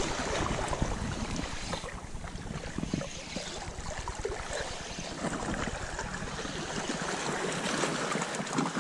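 Wind buffeting the microphone over small sea waves washing against the rocks, a steady rushing noise with low rumbling.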